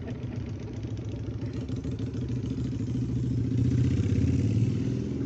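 Small engine running steadily, getting a little louder about three seconds in.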